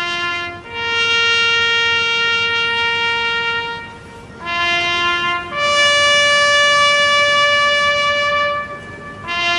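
A solo brass horn plays a slow bugle-style remembrance call. A short low note rises to a long held note, the short note comes again and rises to a higher long held note, and the low note starts once more near the end.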